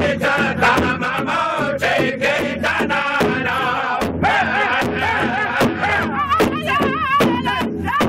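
Northern-style powwow drum group singing in unison around a large hide-headed powwow drum, several singers striking it together in a steady, even beat. Toward the end the voices climb into high, wavering notes.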